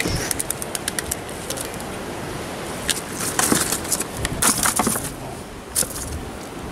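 Wind and sea surf on a rocky shore, with scattered light clicks and taps from a freshly caught fish being handled and put into a bucket, most of them bunched together between about three and five seconds in.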